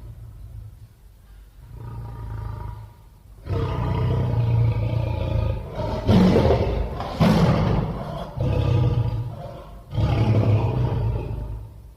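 Big-cat roars and growls, a sound effect for the extinct American lion. A quieter call comes about two seconds in, then a string of about five loud roars runs close together until near the end.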